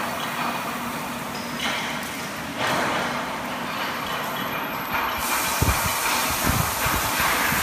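Straight-seam welding machine: two short rushes of hiss early on, then about five seconds in the torch's arc strikes and runs with a steady hiss along the seam, with a few low thumps after it starts.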